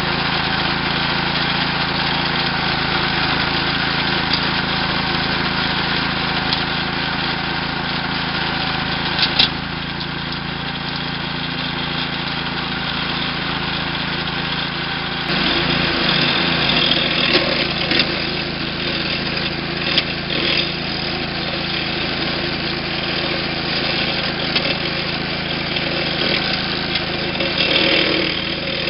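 Small gasoline engine of a walk-behind trencher running steadily while its blade cuts a narrow slit in lawn turf for burying wire. About halfway through the tone shifts, and a few short clacks stand out over the engine.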